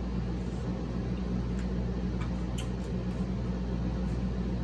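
Steady low mechanical hum in a small room, with a few faint clicks about two to three seconds in.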